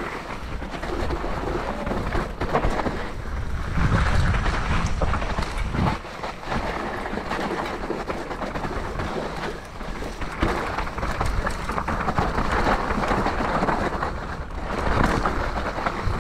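Wind buffeting the microphone and mountain bike tyres rumbling over a rough, wet dirt trail, with a few sharp knocks from the bike hitting bumps.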